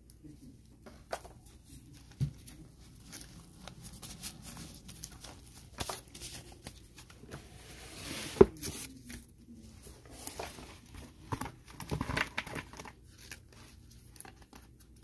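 Trading card boxes and their packaging being handled: crinkling and tearing with scattered clicks, and a sharp knock about eight seconds in.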